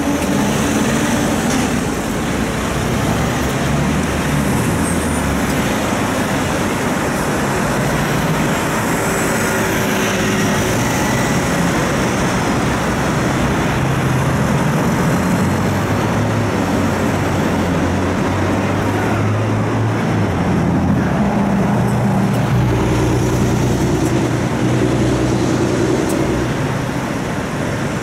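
Steady street traffic heard from inside a tram: cars and vans passing with low engine hums that rise and fall, mixed with the tram's own running noise.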